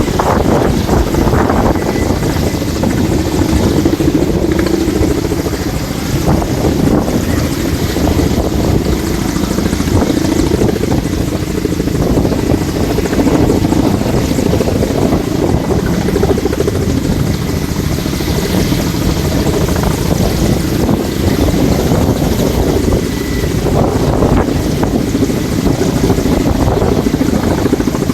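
Firefighting helicopter hovering very low over water, its rotor and turbines making a loud, steady roar while it draws water with a pump, with heavy rotor downwash blowing across the microphone.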